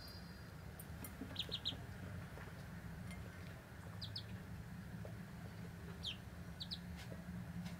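Ducklings peeping: short, high peeps in little clusters of two or three, coming a few times a couple of seconds apart.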